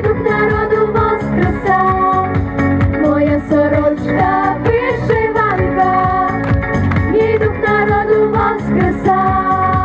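Instrumental ending of a Ukrainian pop song: a melody over a steady beat.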